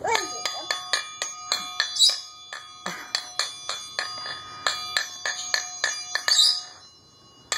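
Small metal triangle hanging from its string, struck quickly and unevenly with a wooden beater, about four strikes a second, its ringing overlapping from one hit to the next. The ringing stops a little before the end.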